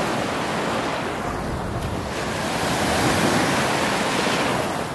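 Gulf of Mexico surf washing up on the beach, easing about two seconds in, swelling to a peak around three seconds and then falling away, with wind buffeting the microphone.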